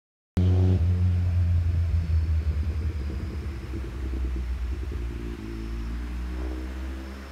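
A motor vehicle's engine rumbling nearby, deep and loud at first and slowly fading.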